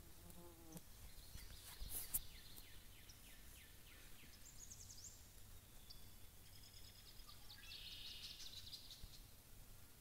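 Faint distant songbirds in a quiet open yard: several rapid trilled songs, with one sharp click about two seconds in.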